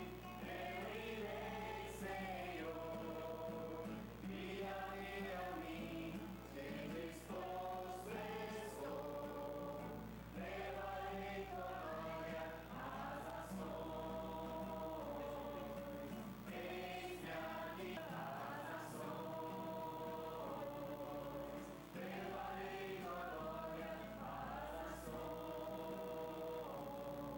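A choir singing in harmony, in phrases with short breaks between them, over a steady low hum.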